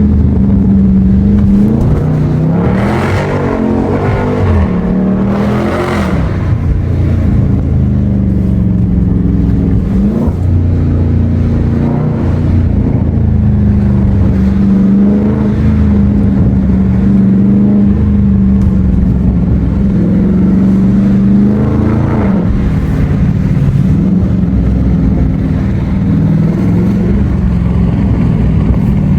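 2021 Dodge Charger Scat Pack's 6.4-litre 392 HEMI V8 with a mid-muffler delete, heard while driving: a steady low exhaust drone whose pitch rises and falls with the throttle, with two short surges about three and six seconds in.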